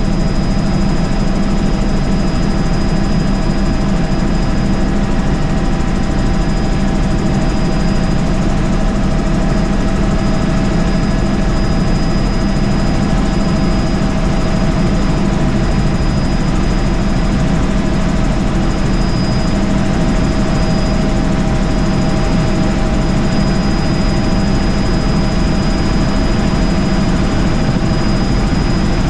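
Helicopter in cruise flight heard from inside the cabin: steady, loud engine and rotor noise with a constant high whine over it.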